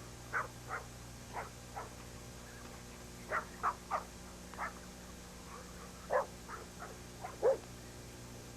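Dog barking in short, irregular barks, about a dozen, over a steady low hum.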